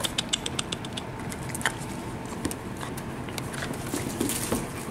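Cavapoo puppies scuffling and playing on a tile floor among toys. A quick run of light clicks near the start, then scattered small clicks and rustles.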